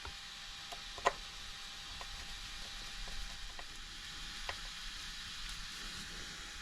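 A few faint, scattered clicks and taps from handling a small screw and tool while fitting an RC car's servo horn, the sharpest about a second in, over a steady low hiss.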